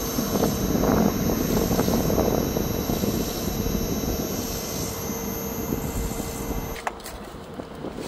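Trane TVR 7G DC-inverter VRF outdoor unit running down at the end of its test run: a steady machine noise with a hum and a high whine. About seven seconds in there is a click, the whine cuts off and the noise drops, as the unit switches off.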